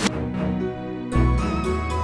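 Background music: an instrumental track of sustained notes, with a deep bass coming in a little past a second in.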